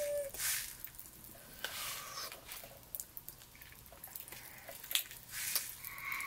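Faint eating sounds of popping candy: scattered small clicks and pops as Pop Rocks crackle in the mouth, with a few brief rustles from the candy packet being tipped up.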